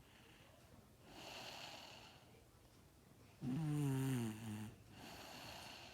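A young girl snoring in her sleep: a soft breathy breath, then about three and a half seconds in a louder pitched snore that slides down in pitch for about a second, followed by another breathy breath.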